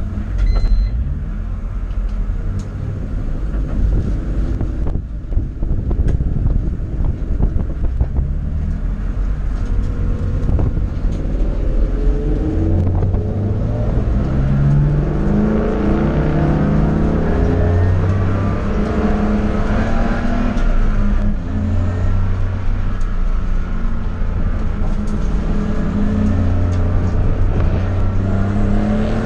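Car engine running low for the first few seconds, then from about ten seconds in revving up hard again and again, its pitch climbing and dropping back with each gear change as the car accelerates.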